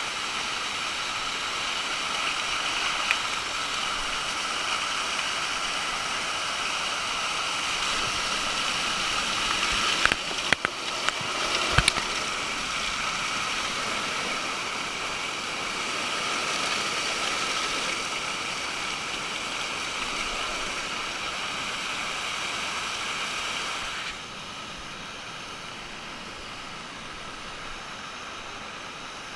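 Steady rushing of a waterfall. A few sharp knocks come about ten to twelve seconds in. About twenty-four seconds in, the rush becomes quieter and duller.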